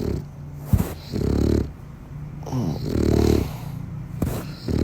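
Sleeping dog snoring loudly, a low rattling snore on each breath, about every second and a half. Two brief sharp clicks come in between snores.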